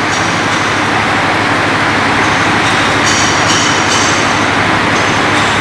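A heavy diesel engine running steadily, with a fine low pulsing under a loud, even hiss.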